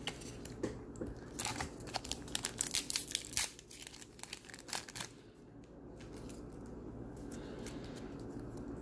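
A foil trading-card booster pack being crinkled and torn open by hand, sharp crackling for the first four seconds or so, then quieter handling of the cards.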